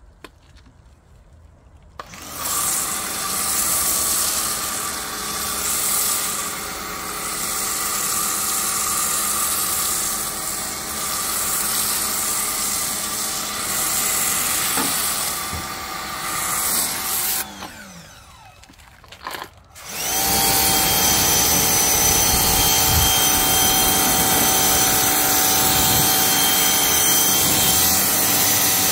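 Craftsman 1900 pressure washer running and spraying water, first through a foam cannon and later through the rinse wand. It starts about two seconds in, stops and winds down briefly about two-thirds of the way through, then starts again and runs steadily.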